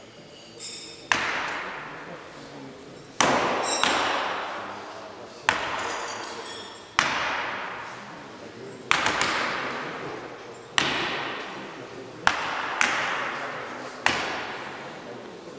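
Throwing knives striking wooden block targets, about ten sharp hits at irregular intervals, a few in quick succession, each followed by a ringing decay.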